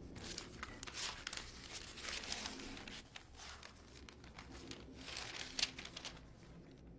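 Sheets of paper rustling and crinkling as they are handled and leafed through, in short scattered rustles.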